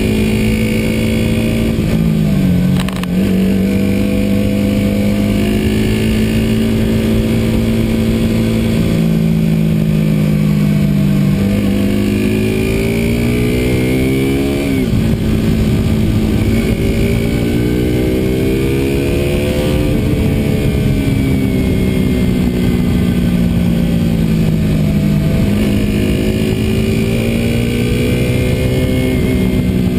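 KTM RC200's 200 cc single-cylinder four-stroke engine pulling on the move, its note rising through the revs and dropping sharply at gear changes, about three seconds in, around halfway and about five seconds from the end. A steady rush of road and wind noise runs under it.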